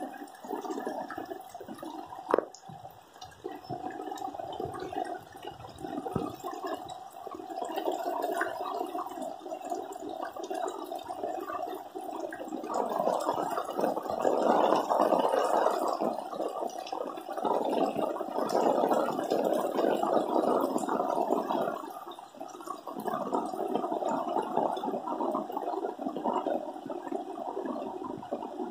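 Rainwater splashing and pouring in a flooded, muddy lane, louder in the middle stretch. A single sharp click about two seconds in.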